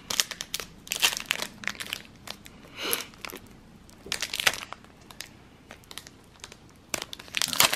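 Plastic wrapper of a Panini NBA Hoops trading card pack crinkling and tearing as it is pulled open by hand, in several short crackling bursts with a quieter pause shortly before the end.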